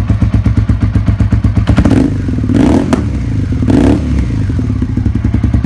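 Suzuki SV650's 645 cc V-twin engine running with a fast, even beat, swelling twice in the middle as the throttle is blipped.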